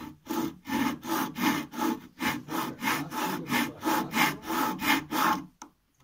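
Japanese hand saw cutting through a wenge hardwood board, in quick, even back-and-forth strokes about three a second, stopping about five and a half seconds in.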